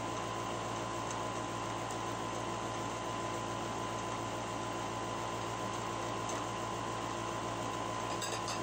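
Steady mechanical hum and hiss with a constant high tone, and a few faint clicks near the end.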